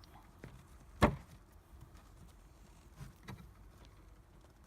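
A sharp knock about a second in and a few fainter clicks, from tightening a caster's nut with a T-tool into the plastic cart tray.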